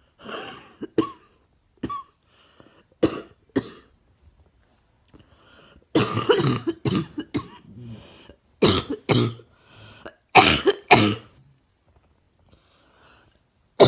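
A person's wet, barking cough, coming in repeated fits of several coughs each with short quiet gaps between.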